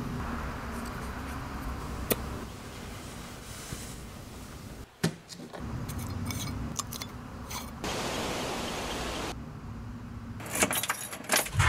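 Quiet handling sounds: a low hiss with scattered light clicks and knocks, a sharper knock about five seconds in, and a quick cluster of clicks near the end.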